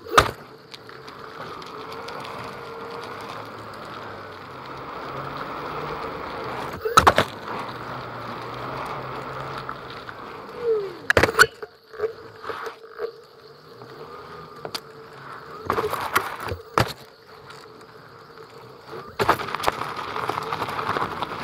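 Onewheel GT ridden with a microphone inside its rail: the hub motor's whine rises and falls with speed over the rumble of the tyre. Several sharp knocks come through the board as it drops off a curb at the start and hits bumps, and the sound turns to a rougher gravel rattle near the end.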